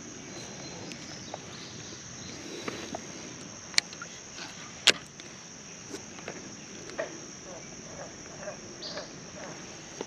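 Steady high-pitched insect chorus, with scattered sharp clicks and taps from handling the fishing rod and soft-plastic bait; the loudest click comes about five seconds in.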